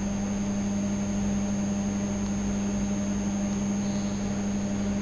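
Steady electrical hum with a faint hiss from the recording setup, unchanging and with no other events.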